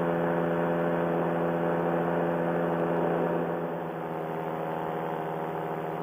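Paramotor engine running steadily in flight, a smooth even drone; it eases slightly quieter a little past halfway as the throttle comes back a touch.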